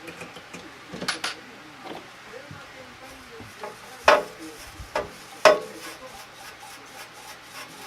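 Metal pieces being handled and set down: a handful of sharp clinks and knocks with a brief metallic ring, the two loudest about four and five and a half seconds in.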